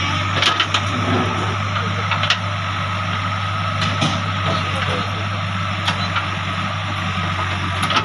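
JCB 3DX backhoe loader's diesel engine running steadily while it digs, with a steady high whine over the low engine hum and several sharp knocks scattered through.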